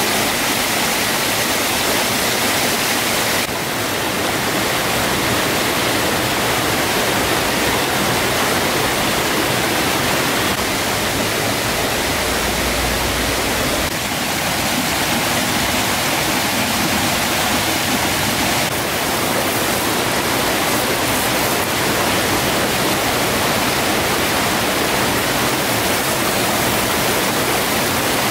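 Small rocky stream rushing and splashing over stones in a steady, even wash of water noise.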